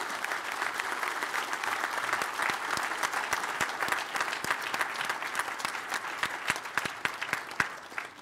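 Audience applauding: dense clapping from many hands, easing slightly near the end.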